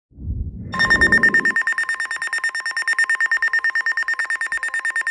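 Midland WR120 weather radio's alert alarm: a loud, rapidly pulsing high-pitched beep that starts under a second in and keeps going, signalling an incoming weather warning. A brief low rumble comes just before it.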